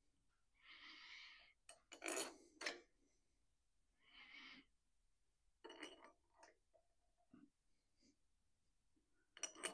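Faint, scattered metal clicks and scrapes of cylinder head bolts being handled and started by hand into a Kohler Command engine's cylinder head, with two short soft hisses between them.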